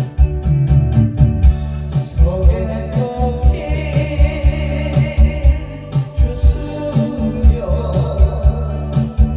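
Korean trot song with a steady dance beat and a singing voice over the band accompaniment.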